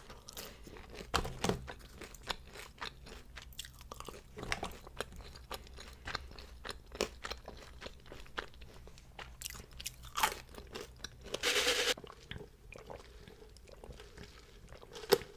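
Close-miked eating: crunchy bites and chewing, with many sharp crackles, and a brief denser rustling burst a little past eleven seconds in.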